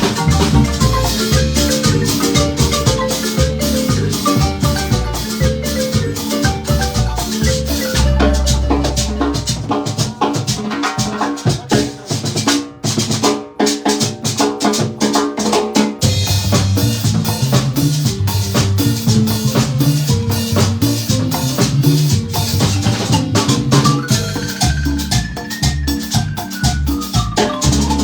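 Marimba ensemble playing a fast tune over rapid percussion. The bass drops out for a few seconds in the middle, then comes back in, and a tone slides up and back down near the end.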